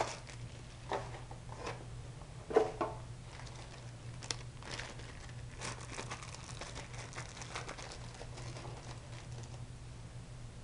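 Packaging crinkling and rustling in the hands as an iPhone 4 case is unwrapped, with a few sharper handling clicks, the loudest about two and a half seconds in. A steady low hum runs underneath.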